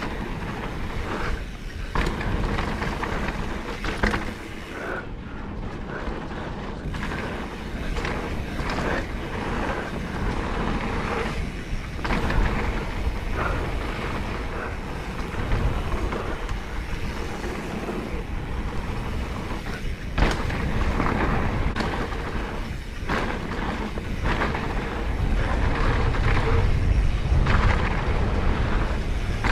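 Mountain bike descending a dirt jump trail: steady wind rush on the camera microphone over the rumble and rattle of the bike rolling on packed dirt, with a few sharp thumps from landings and bumps. The rushing grows louder near the end.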